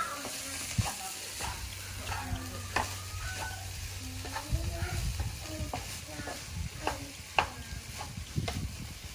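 Fried rice sizzling and crackling in a frying pan on a portable gas stove, with many short clicks and a few faint chirps.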